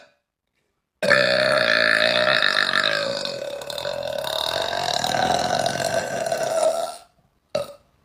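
A woman's long, drawn-out belch lasting about six seconds, starting about a second in. A brief short sound follows near the end.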